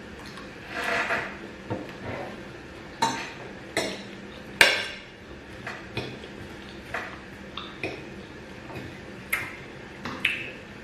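Cutlery clinking and scraping against a plate while food is eaten: about a dozen sharp clinks at irregular intervals, with a longer scrape about a second in and the loudest clink near the middle.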